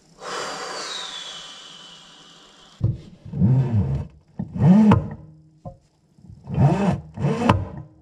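A rushing noise with a falling whistle in it, fading out over about two and a half seconds. Then background music takes over: an electric guitar playing a pulsing, repeated figure, the loudest sound here.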